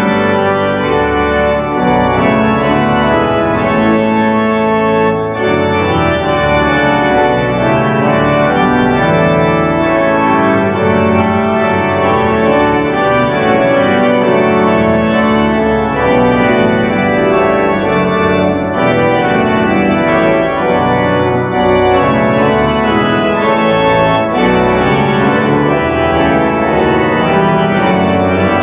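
Church organ playing a hymn arrangement: full held chords on the manuals over a pedal bass line, changing every second or so without a break.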